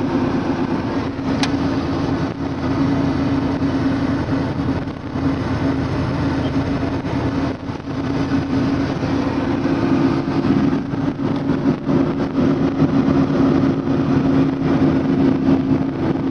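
An engine running steadily with a constant hum, unchanged in speed.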